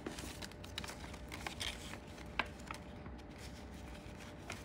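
Paper banknotes rustling as they are handled and slipped into a paper cash envelope in a ring binder: a few faint, crisp rustles and ticks, the sharpest about halfway through.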